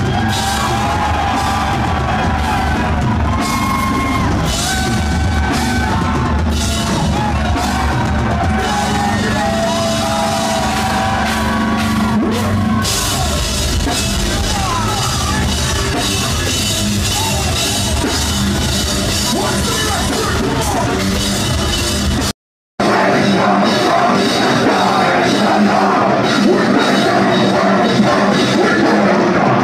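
A deathcore band playing live, with distorted guitars, heavy drums and screamed vocals, loud and harsh as heard from inside the crowd on a phone microphone. The sound drops out for a split second about three-quarters of the way through, then carries on.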